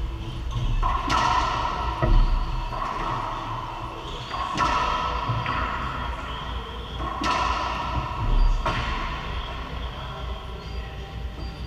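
Racquetball rally: the hollow ball cracks off racquets and the court walls every second or so, each hit echoing in the enclosed court, with a couple of heavier low thuds as a player hits the hardwood floor diving for the ball.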